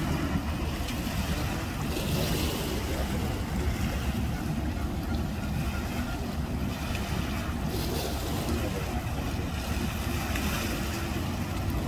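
Steady outdoor rumble of wind on the microphone mixed with engine hum, with no distinct events.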